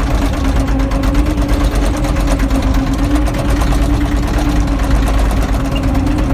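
Toy bulldozer running with a steady, fast mechanical rattle like an idling engine, over a constant hum.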